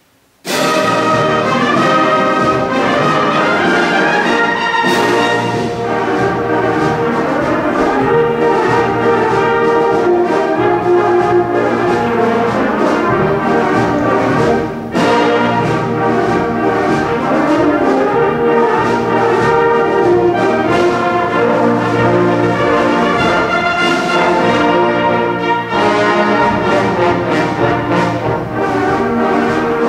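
Concert band of woodwinds, brass and percussion playing a military march, coming in loud and all at once about half a second in.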